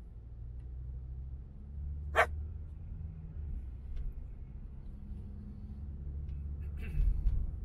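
Low, steady drone of a car driving, heard from inside the cabin. About two seconds in there is one short, sharp yelp-like sound, and near the end a brief clatter of knocks with a low thump.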